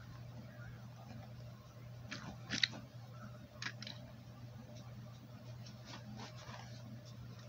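Fidget toys being handled and set down on a paper plate: a few soft rustles and clicks, the sharpest about two and a half seconds in, over a steady low hum.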